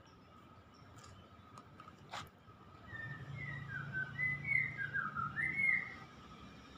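A quick run of short whistled notes, each sliding up or down, over a faint outdoor background, with a single click a couple of seconds in.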